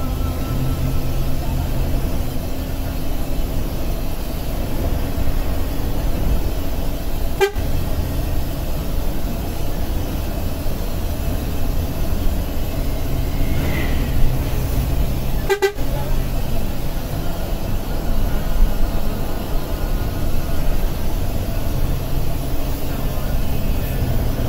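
Intercity bus driving, heard from inside the cabin: a steady low engine and road rumble, with horn toots from traffic or the bus itself.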